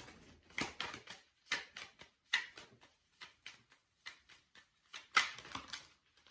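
Tarot cards being handled and shuffled: a string of irregular sharp snaps and taps, about three a second, loudest a little after five seconds in.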